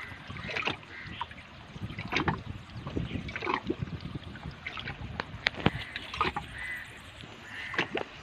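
Scattered clicks and knocks from a fisherman handling a freshly caught fish and his rod and line, over water lapping against rocks.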